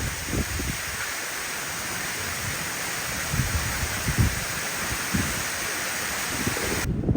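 Waterfall rushing in a steady roar of falling water, with low wind buffeting on the microphone; it cuts off abruptly near the end.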